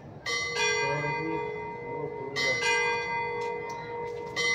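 Church bells rung in a repique, heard close up inside the belfry. Two bells of different pitch are struck in quick pairs about every two seconds, and each pair keeps ringing until the next.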